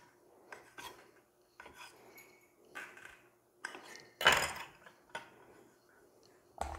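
Kitchen knife chopping through a soft rope of dough and striking a marble board: a series of separate taps and clacks, with one louder clack about four seconds in.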